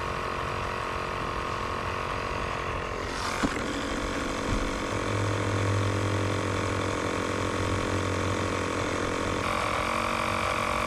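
Air compressor running steadily, inflating an ATV tire with an inner tube. A sharp pop about a third of the way in is typical of the tire bead seating on the rim, and another short crack comes right at the end.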